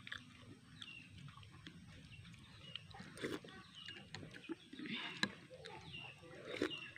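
People eating noodle soup, with quiet slurping and spoons clicking against the bowls now and then. A bird chirps briefly a few times.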